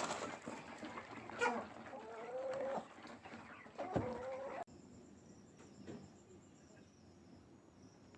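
Chickens clucking and calling, with drawn-out calls about one and a half and four seconds in. Just before five seconds in, the sound cuts abruptly to a much quieter background with high, evenly repeated chirping like crickets.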